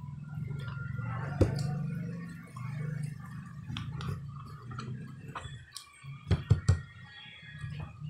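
A person eating a meal by hand: chewing and mouth noises close to the microphone, with a sharp knock about a second and a half in and three quick knocks near the end.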